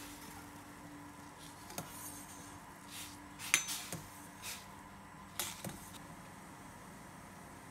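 A slotted stainless steel spoon knocking and scraping against a stainless steel pot several times while stirring glutinous rice balls in hot water; the loudest clink, about three and a half seconds in, rings briefly. A faint steady hum runs underneath.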